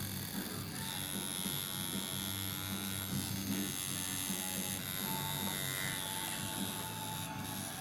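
Electric tattoo machine buzzing with a steady high whine, briefly dropping out a couple of times.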